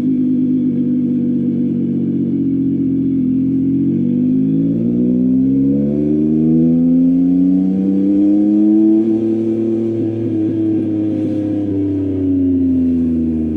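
Yamaha MT-09's three-cylinder engine through an Akrapovic full-system exhaust, holding a steady cruise, then pulling up gradually in revs over several seconds and easing back slightly near the end.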